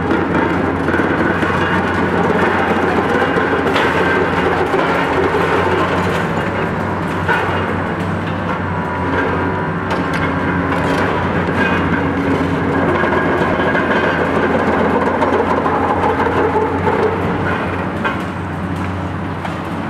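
Diesel engines of Cat high-reach demolition excavators running steadily under hydraulic load, with a few sharp cracks and knocks of concrete and steel being broken by their tools.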